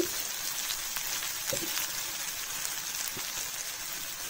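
Shallots, garlic, curry leaves and dried red chillies sizzling in a little oil in a metal kadai: a steady frying hiss. A few light knocks come as spoonfuls of coriander powder go into the pan.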